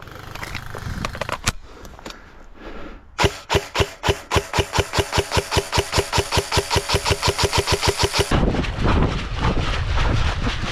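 Airsoft rifle firing a single shot, then a long full-auto burst of about ten shots a second that lasts about five seconds and stops abruptly.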